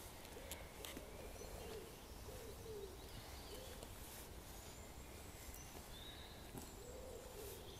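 Quiet woodland ambience: faint, low arching bird calls repeat a few times, with thin, high birdsong now and then over a soft low rumble.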